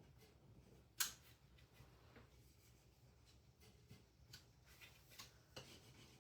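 Quiet handling sounds at a craft table: one sharp click about a second in, then a few lighter taps and clicks near the end.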